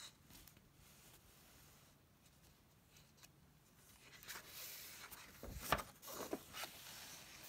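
A picture book's paper page being turned by hand: faint rustling from about four seconds in, then a few sharp flaps of the page a second or so later.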